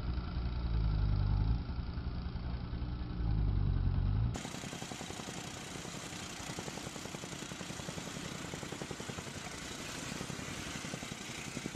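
A jackhammer running. For the first four seconds it is a heavy low rumble; then it cuts abruptly to another recording of a jackhammer hammering with rapid, even blows.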